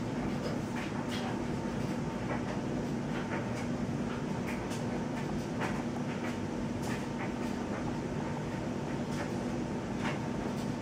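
Steady mechanical hum with a low constant tone, with faint light clicks scattered through it.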